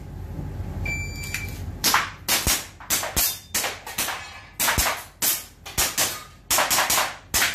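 An electronic shot timer gives a single start beep, and about a second later an airsoft handgun fires a rapid string of sharp shots, many in quick pairs, as the stage is shot.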